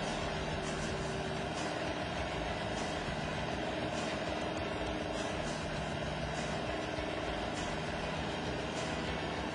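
Skid loader engine running steadily as it drives a mounted backhoe's hydraulics, a constant hum with a few steady tones that drift slightly in pitch.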